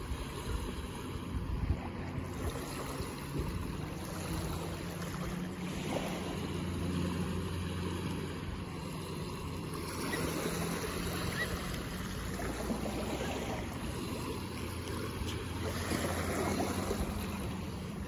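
Small waves breaking and washing up a sandy beach, swelling and easing every few seconds.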